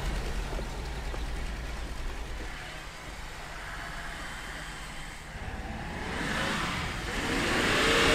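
1978 Datsun 280Z's straight-six engine running as the car drives across grass: the sound fades as it moves off, then grows louder with a rising pitch as it accelerates back near the end.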